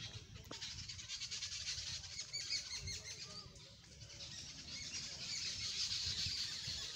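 Many birds chirping at once, a dense chorus of short overlapping calls that grows fuller after about four seconds, with a low rumble underneath.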